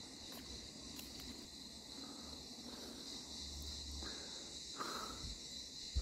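Steady high-pitched insect chorus, a continuous even chirring, over a faint low rumble.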